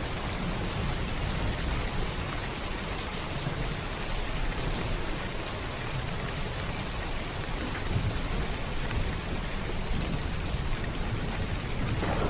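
Heavy rain falling steadily on a roof, an even hiss of drops, with a low rumble of thunder underneath.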